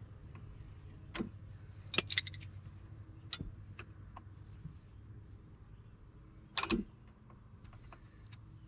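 Metal drum brake springs and shoe hardware clinking as an upper spring is worked off the brake shoes by hand and with pliers. There are a few scattered clicks, a quick cluster about two seconds in, and the loudest clank about seven seconds in.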